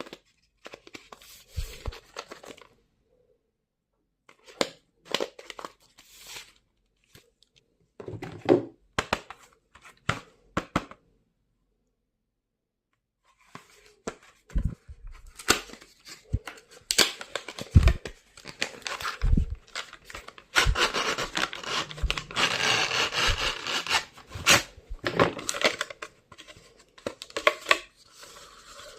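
Stationery packaging being torn open and handled: tearing and crinkling of paper or plastic wrap in irregular bursts, with sharp clicks and a few pauses, busiest in the second half.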